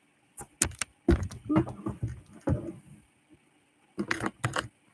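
Choppy, broken-up speech chopped into short fragments with sharp clicks and sudden dropouts to dead silence: the recording glitching.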